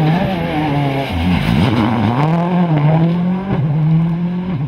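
Ford Focus rally car's engine revving hard as it passes. The pitch drops as it lifts off for the corner about a second in, then climbs again through several gear changes as it accelerates away.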